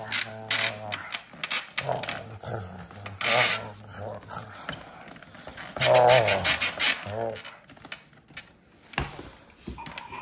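Large plastic toy dinosaurs, an Indominus rex figure and a dinosaur hand puppet, clicking, rattling and knocking together as they are made to fight. Low pitched sounds come near the start and again about six seconds in.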